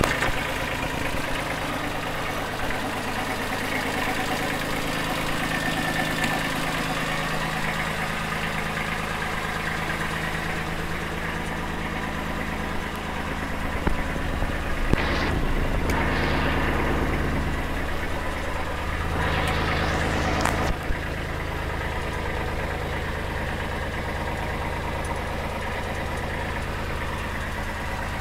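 Kubota B2350 compact tractor's three-cylinder diesel engine idling steadily. A few short clicks and knocks come through around the middle.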